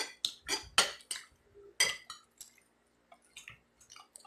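Metal spoons and forks clinking and scraping on dinner plates: a quick run of sharp clinks in the first two seconds, then a few fainter ones.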